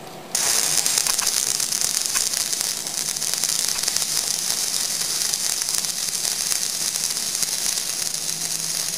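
Stick (MMA) welding arc on a 6013 flux-coated electrode at 90 amps: the arc strikes about a third of a second in, then runs as a steady, dense crackling hiss.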